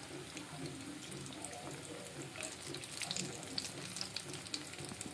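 Nargis kebabs deep-frying in hot oil: a steady sizzle with scattered small crackles and pops.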